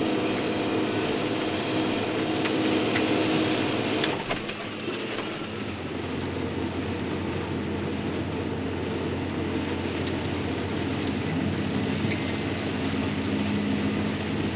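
Heavy rain coming down hard on a vehicle cab, heard from inside, with the engine running steadily underneath.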